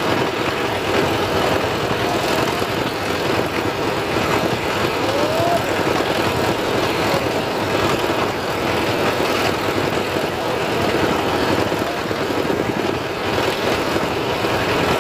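Diesel engine running steadily, a continuous unbroken drone.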